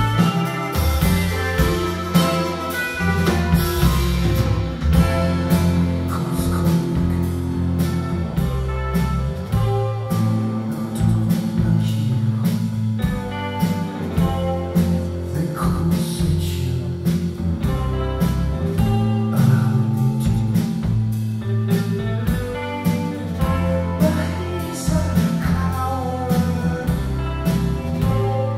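Live rock band playing a song: drum kit keeping a steady beat under bass and electric guitars.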